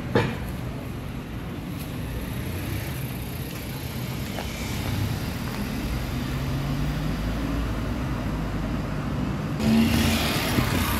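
Street traffic noise: a car engine running nearby, its hum growing gradually louder, with a single sharp knock just after the start and a rush of louder hiss near the end.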